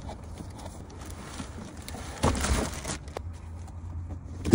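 Rustling and handling noise from packaging being unwrapped, with a short rustle about halfway through and a sharp knock near the end, over a steady low hum.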